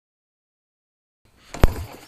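Dead silence for over a second, then a low rustle and one sharp, loud pop near the end. The pop is the magneto ignition's electromagnetic interference picked up by the camera as the Yamaha XS650 chopper is kicked over from cold.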